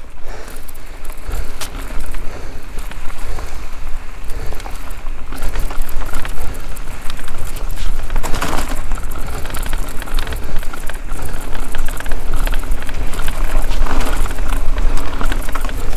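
Mountain bike ridden fast down a dirt trail: wind buffeting the action camera's microphone as a steady low rumble, with tyres on dirt and the bike rattling over bumps in many short clicks, swelling louder about eight and fourteen seconds in.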